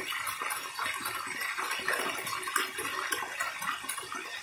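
Chicken wings and a drumstick deep-frying in hot oil in a covered pan: a steady sizzle full of small crackles and pops from the spattering skin.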